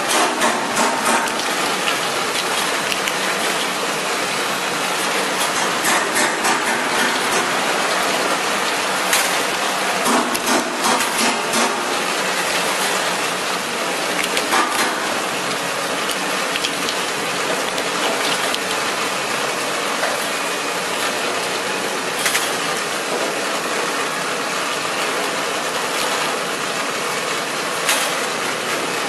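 Hard-boiled egg peeling machine running: its stainless-steel rollers and chain conveyor clatter and rattle steadily under a hiss of spraying water. A few sharper knocks stand out now and then.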